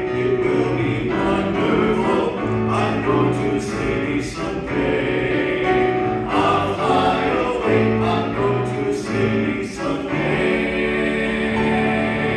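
A man and a woman singing a gospel song with piano accompaniment, drawing out the closing phrase and ending on a long held note.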